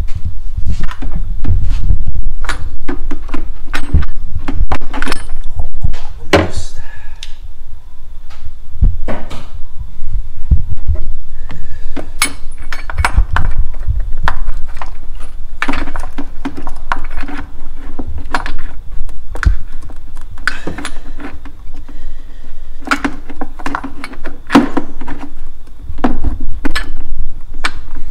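Irregular metallic clinks and knocks of a socket on long extensions and a swivel being worked in among engine parts to reach an oil pressure sender, over dull low thumps and rubbing.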